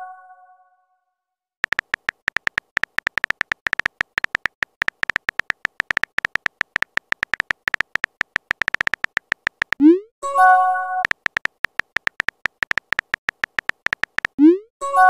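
Texting-app sound effects: a fast run of keyboard tap clicks as a message is typed, then a quick rising swoop and a short bright chime as it is sent. The typing and send sound repeat near the end.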